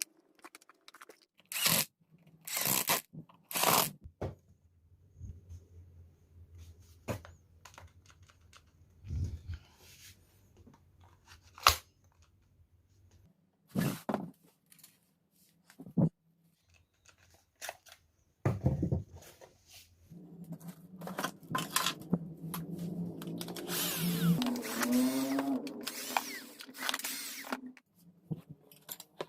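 Clicks, knocks and scraping of small tools and drill parts being handled on a workbench. A longer stretch of rustling and scraping comes about two thirds of the way in.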